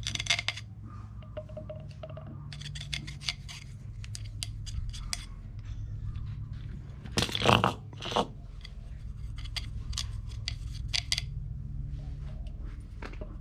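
Scattered light scrapes and clicks of hand work on a truck's wheel hub while anti-seize is applied, with one louder scrape about seven and a half seconds in, over a low steady hum.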